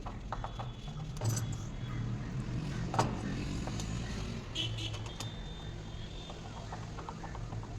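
Light metallic clinks and clicks of small hardware and hand tools being handled while a hydraulic door closer is fitted, with one sharper click about three seconds in.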